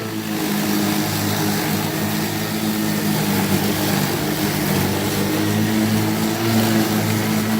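Kobalt 80V cordless electric lawn mower running under load, its blade spinning with a steady hum over the rushing noise of grass being cut.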